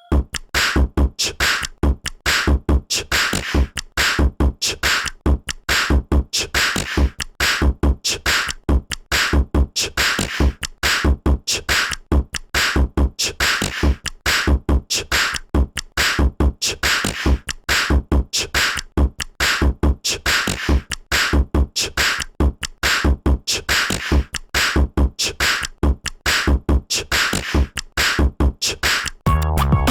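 Android 11 Go Edition ringtone playing: a looping electronic drum beat with a steady kick drum under crisp, noisy percussion hits.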